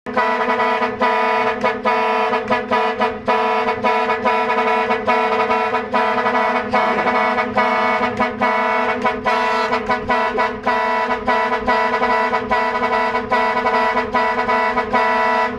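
Truck horn sounding a chord of several tones, blown in quick rhythmic bursts as a hand slaps the horn pad in the steering-wheel centre. The chord breaks off briefly many times and stops suddenly at the end.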